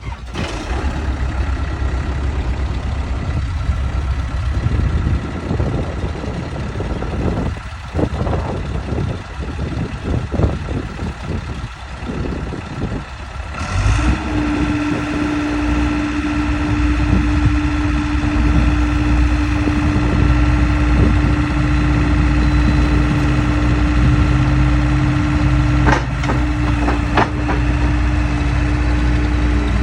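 Diesel engine of a New Holland C190 tracked skid steer loader running just after a cold start. About halfway through it is throttled up and runs louder, with a steady whine that holds to the end.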